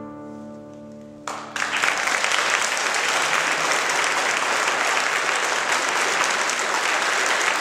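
The final chord of a nylon-string classical guitar rings and dies away. Then audience applause starts suddenly about a second and a half in and keeps up at a steady level.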